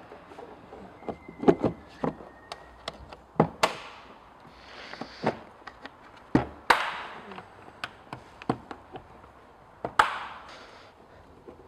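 Irregular hand-handling knocks, taps and clicks of hard plastic engine-bay parts as the air filter housing lid is pressed and clipped into place, with a few louder knocks every couple of seconds.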